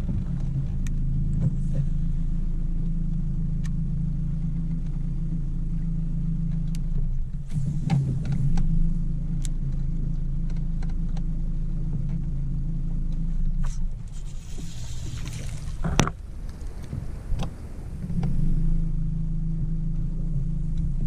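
Steady low hum of an electric bow-mounted trolling motor running. It cuts out about two-thirds of the way through and comes back near the end. In the gap a hooked bass splashes at the surface and there is a sharp knock.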